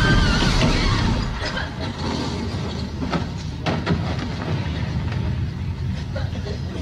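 Low rumble slowly dying away after an explosion, with a few sharp cracks of falling debris about three to four seconds in.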